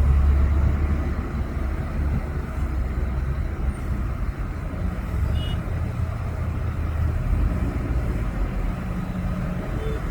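Heavy diesel engine of earthmoving equipment running steadily, a low rumble that is loudest in the first second and then eases slightly.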